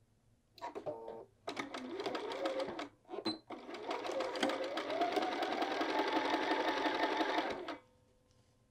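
Bernina sewing machine stitching through layers of heavy fabric in several runs: a short burst, a second run, a brief stop, then a longer run. In the longer run the motor whine rises in pitch as it speeds up, holds steady, then stops near the end.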